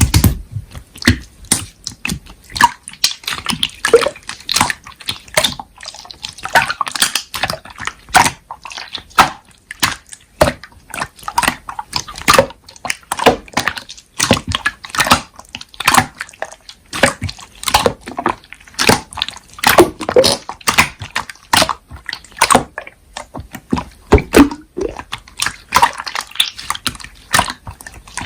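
Slime being squeezed and poked by hand, making irregular wet clicks and squelching pops, several a second.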